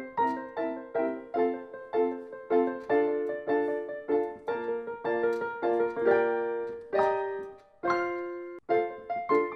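Background piano music: notes played in an even, light rhythm, with a chord held and left to fade about seven seconds in, then a short gap before the notes pick up again.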